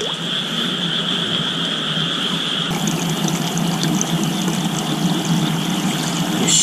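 A steady night chorus of frogs calling, with a short whoosh near the very end.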